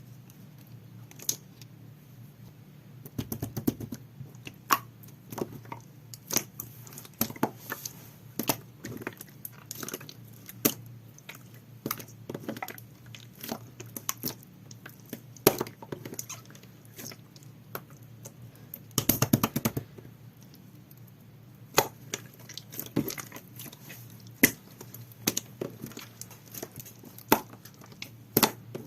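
Jelly-textured slime being squeezed and worked by hand, giving irregular sharp pops and clicks, with two dense crackling flurries: one a few seconds in and one a little past the middle.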